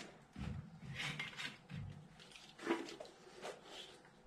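Faint clicks, light knocks and clatter of hands handling a small LED light bar and its wiring on top of a car battery.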